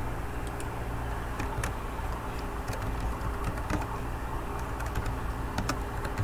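Typing on a computer keyboard: irregular key clicks, a dozen or so, over a steady low hum.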